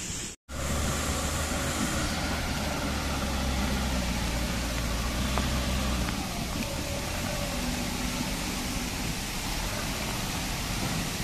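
Diesel engine of a backhoe loader running steadily over the hiss of muddy water running across the road. Its low drone weakens about halfway through.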